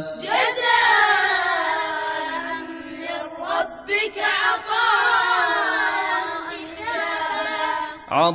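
A child's voice chanting Quranic recitation in a melodic murottal style, in phrases that glide up and down in pitch.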